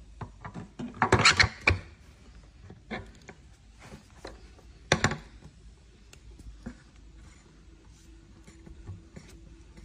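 Metal knocks and clacks of an e-bike hub motor being assembled by hand: a quick cluster of loud knocks about a second in as the motor's geared internal assembly goes into the hub shell, a single sharp knock near five seconds, then light clicks of handling and a hex key at the axle.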